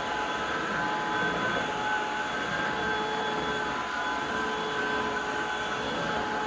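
Shunzao Z11 cordless stick vacuum cleaner running steadily: rushing air with a steady high motor whine of several tones.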